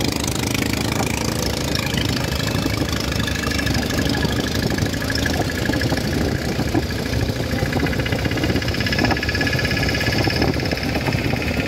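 Boat engine running steadily with a fast low throb, and a steady high whine comes in a few seconds in.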